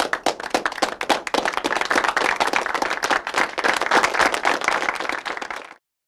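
Applause: separate claps thicken into steady dense clapping, which cuts off suddenly near the end.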